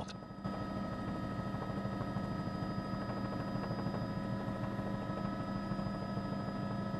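A steady mechanical hum with several constant pitches over a noisy rumble, starting about half a second in and holding unchanged.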